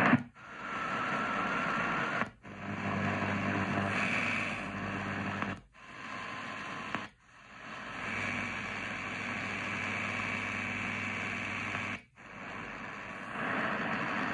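Eton Field BT Grundig Edition radio's speaker hissing with AM medium-wave static and a faint hum between stations. It cuts out briefly five times as it is tuned up the band, one dropout at each frequency step.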